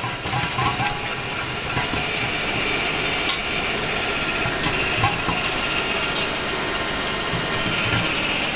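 Automated circumferential MIG welding machine at work: a steady hiss and crackle of the welding arc, with a few sharp clicks scattered through it.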